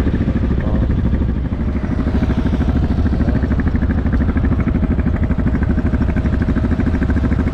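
Motorcycle engine running under way, its exhaust pulsing rapidly and evenly. A steady higher tone joins about two seconds in.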